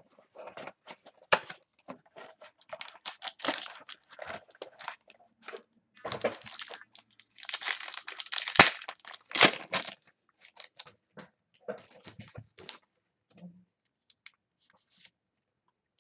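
Irregular crinkling and crackling of card packaging being opened and handled, as a trading-card pack or box is unwrapped and its cards are handled. The noise is busiest about halfway through and thins out near the end.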